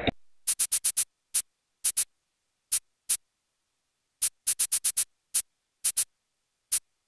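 A series of about twenty short, sharp, high-pitched clicks at an uneven pace over otherwise dead silence, an added editing sound effect. The recorded sound drops out just as it starts.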